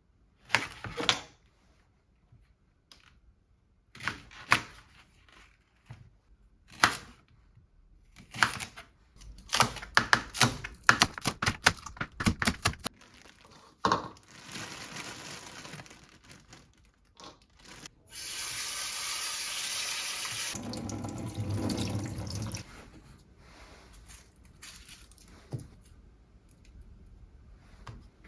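A chef's knife chopping vegetables on a cutting board, in separate cuts at first, then a quick run of chops. Past the middle, a kitchen tap runs into a stainless-steel sink for about four seconds, rinsing bean sprouts.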